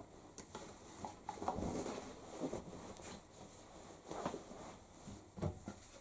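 Shirts being handled and loaded by hand into the drum of a tumble dryer: cloth rustling with a few soft knocks, busiest about a second and a half in.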